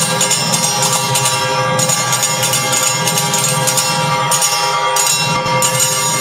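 Temple bells ringing rapidly and without a break during the puja, a dense metallic clanging with steady overlapping ringing tones.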